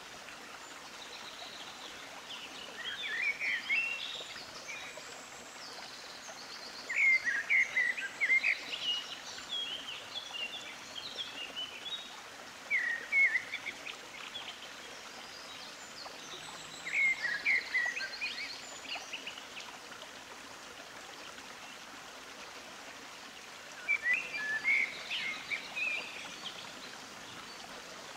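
Birds singing in short bursts of quick chirps every few seconds, over a steady hiss.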